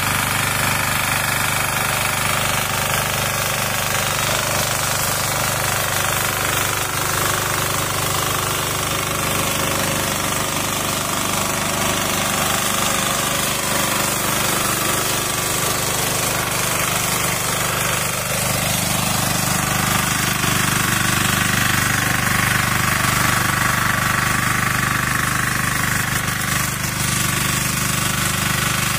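Kisan Kraft 406D power weeder's engine running steadily with a rattling knock as its rotary tines work through the soil.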